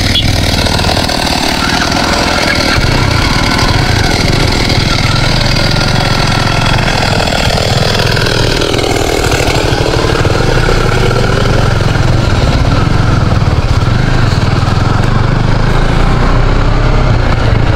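Motorcycle engine running steadily at low speed while the bike rides slowly along a rough road; the pitch dips and comes back up about halfway through.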